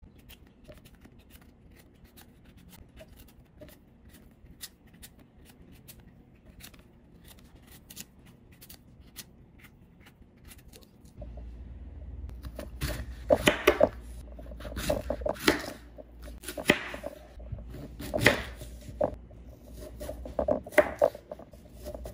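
A kitchen knife slicing a peeled, unripe green mango on a wooden cutting board, starting about halfway in: crisp cuts through the firm flesh and knocks of the blade on the board, roughly one a second, over a low hum. Before that there are only faint scattered clicks.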